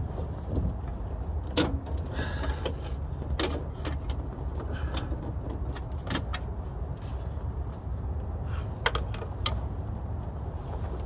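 Scattered metallic clinks and knocks of hand tools and fasteners against the underside of a truck, during removal of a 4L60E transmission, over a steady low rumble.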